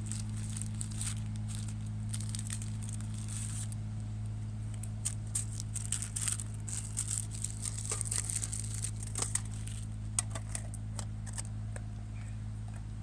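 Plastic wrapping being handled, crinkling and tearing in irregular crackly bursts, with a steady low hum underneath.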